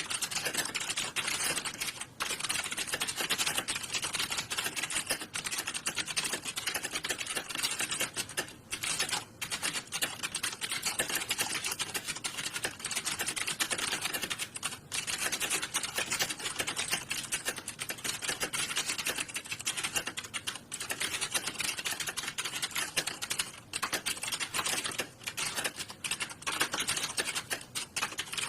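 Computer keyboards clattering in fast, continuous typing, the keystrokes so dense they overlap into an unbroken patter with only a few brief lulls, as many typists work at once in an SSC typing exam hall.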